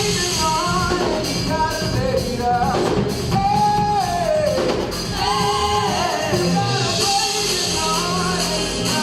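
Gospel praise-and-worship song: voices singing a melody over band accompaniment with a steady beat.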